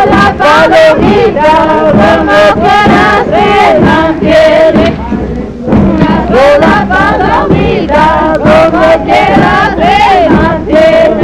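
Salta folk song sung by a group of voices in chorus, the pitch bending within phrases, over steady percussion strokes.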